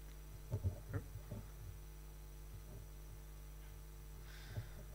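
Steady low electrical mains hum from the sound system, with a few soft knocks in the first second and a half.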